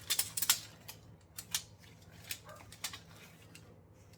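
Light clicks and taps of an air purifier filter and measuring tape being handled, a quick cluster in the first half second, then single taps every half second or so.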